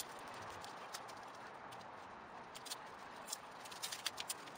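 Scattered light clicks and knocks of parts being handled as a front wheel hub is fitted onto the strut's spindle by hand, over a steady hiss.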